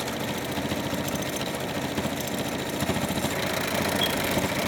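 Electric sewing machine running steadily at speed, its needle rapidly punching a straight stitch through a hair weft track onto a wig cap.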